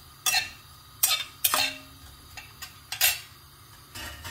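Flat metal spatula scraping and knocking against a kadai as sliced onions are stirred in hot oil: about four sharp clacks, one followed by a brief metallic ring.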